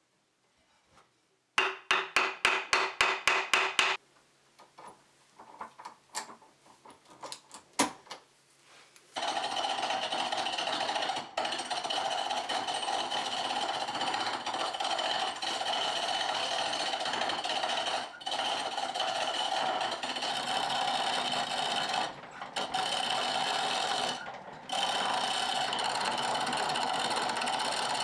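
A quick run of about a dozen sharp, ringing hammer taps, then a few light knocks. After that comes the steady scraping hiss of a hand-held turning tool cutting a wooden chisel-handle blank that spins on a foot-powered treadle lathe, broken by a few short pauses.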